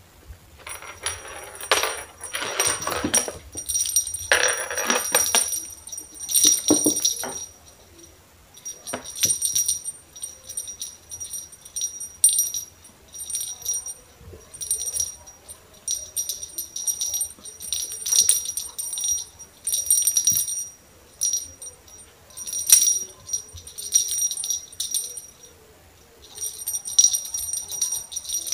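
A small jingle bell on a red fluffy cat wand toy jingles in irregular bursts as a tabby cat bats and bites it, with rustling and scuffing in the first several seconds.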